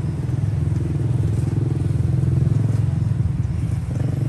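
An engine running steadily close by, a low rumble that swells slightly midway.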